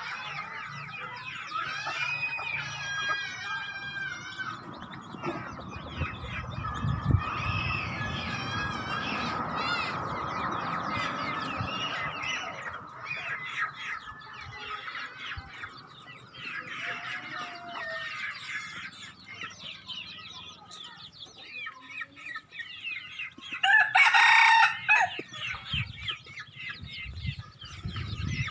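Wild chicken (red junglefowl) clucking and calling repeatedly in short, pitched notes. A single loud crow comes near the end and is the loudest sound.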